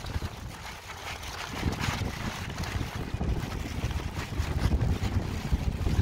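Wind buffeting the camera microphone, an irregular gusty rumble.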